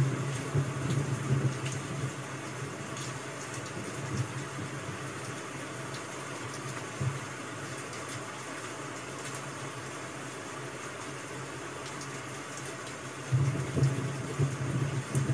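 Rain-sound ambience: a steady hiss of falling rain with faint scattered ticks, and a low rumble that swells near the start and again near the end.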